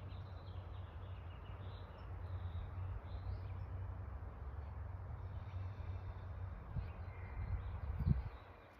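Outdoor ambience: a steady low rumble with faint, scattered bird chirps, and a brief low thump near the end.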